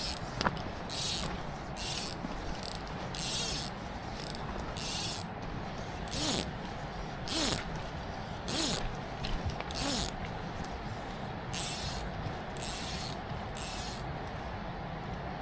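Click-pawl fly reel buzzing in short pulls as line is stripped off it, about one pull a second, each a brief ratcheting buzz that speeds up and slows down.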